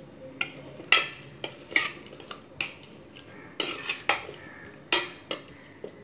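Metal spoon stirring spice powders into cooked dhal and vegetables in an aluminium pressure cooker, clinking and scraping against the pot in irregular strokes, about a dozen sharp clinks.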